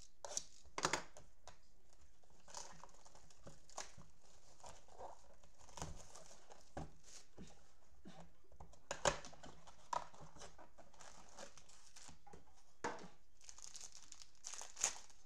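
Plastic and foil packaging of a Panini Prizm football blaster box crinkling and tearing as the box is opened and its foil card packs are pulled out, with several louder sharp crackles among the rustling.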